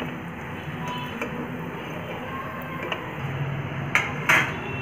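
Hot oil in a kadai sizzling steadily with small crackles as a fried kandarappam is lifted out with a slotted ladle. A couple of sharp taps come near the end.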